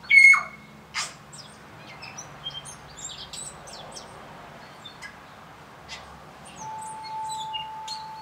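Tūī singing: a varied run of short chirps, clicks and whistles, loudest at the very start. A steady held tone comes in near the end.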